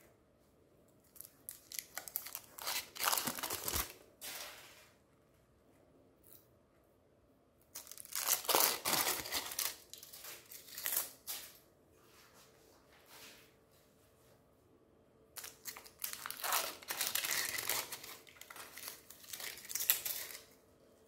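Foil wrappers being peeled and crumpled off umbrella-shaped chocolate bars by hand, in three bouts of a few seconds each.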